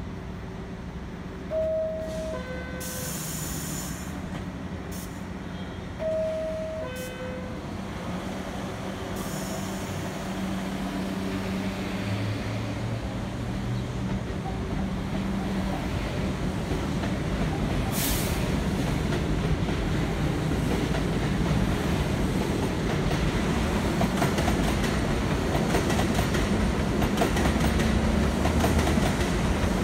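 R62A subway train's two-note descending door chime sounds twice, each time followed by a hiss of air from the doors. The train then pulls out, its traction motors whining up in pitch and its wheels rumbling and clattering on the elevated track, growing steadily louder.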